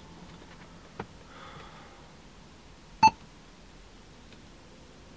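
Android car head unit's short electronic touch-confirmation beep, sounding once about three seconds in as its touchscreen is tapped. A faint click comes about a second in.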